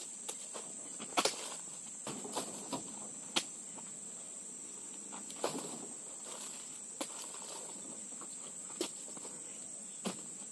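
Oil palm fruit bunches knocking and thudding into a pickup truck bed as they are lifted in with a pole: irregular knocks a second or a few seconds apart, the loudest a quick double knock about a second in. A steady high insect drone runs underneath.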